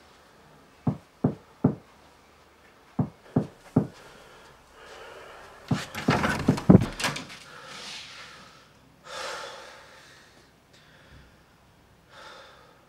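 Knocking on a door in sets of three quick knocks, then a louder flurry of banging and rattling about six seconds in, followed by a few short hissing noises.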